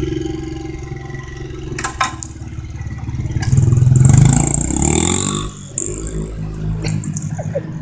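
Honda CRF70F dirt bike's small four-stroke single-cylinder engine running, then revving up with a rising pitch about three and a half seconds in as the bike pulls away, before dropping back to a quieter, steady note as it rides off.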